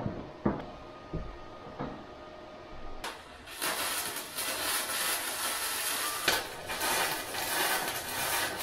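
A few light knocks of steel being set in place, then about three seconds in a wire-feed welder's arc strikes and runs with a steady crackling sizzle, broken off briefly once, as a bead is laid on the steel strut-channel rail.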